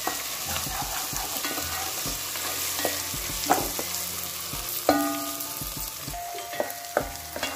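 Ground onion and ginger-garlic paste sizzling in hot oil in a pot while being stirred with a wooden spatula, which scrapes and knocks against the pot now and then.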